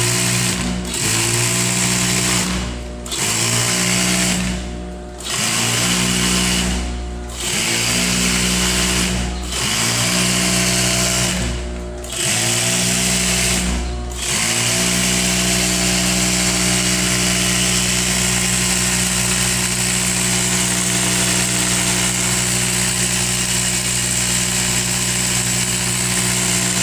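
Juki DDL-5550 industrial lockstitch sewing machine running under its motor: for the first half it runs in short bursts about every two seconds, each one rising in pitch as it speeds up, then it runs steadily without stopping for the last dozen seconds.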